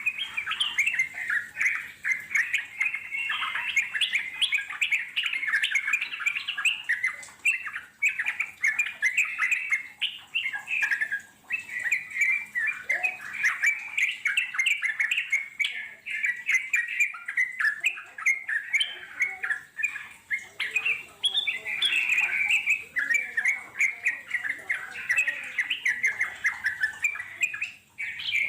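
Yellow-vented bulbuls (trucuk) singing in a long run of rapid chattering notes with almost no pause, the 'ngeropel' song.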